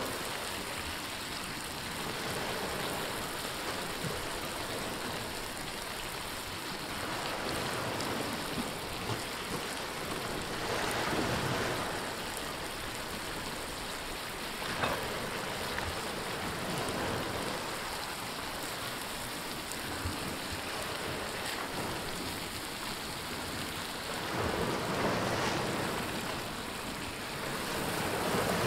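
Vegetables sizzling in a wide black pan over a wood fire, a steady frying hiss that swells louder a few times as fresh greens and chopped tomatoes go into the hot oil.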